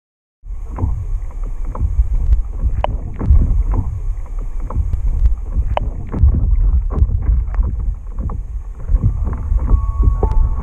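Water sloshing and splashing around a camera at the water's surface, with a heavy low rumble and many irregular splashy ticks. Near the end a few held tones come in as music starts.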